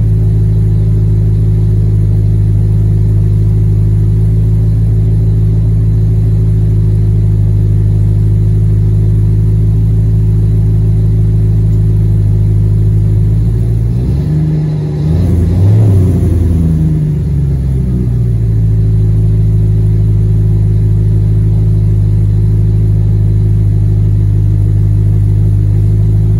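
2015 Audi RS5's 4.2-litre V8 idling through JHM race headers, non-resonated downpipes and a 2.75-inch catback with the exhaust valves open, settled after a cold start. About halfway through the engine is revved once, its pitch rising and falling back to idle over a few seconds.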